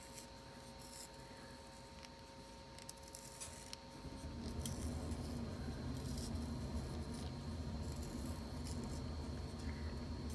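Möbius + Ruppert brass hand-held sharpener shaving a pastel pencil, turned slowly and carefully: faint scraping with small clicks as the blade cuts wood and core. About four seconds in a low steady hum starts and carries on underneath.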